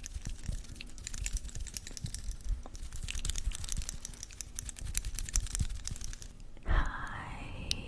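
Quick, light clicking and crackling taps, a close-miked ASMR trigger sound much like fingernails tapping and scratching. Near the end the taps stop and a tone rises and then holds steady.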